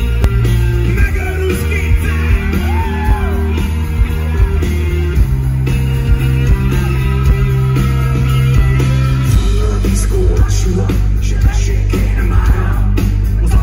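Live rock band performance: drums, bass, guitars and keyboards, with a male lead singer, loud and heavy in the bass.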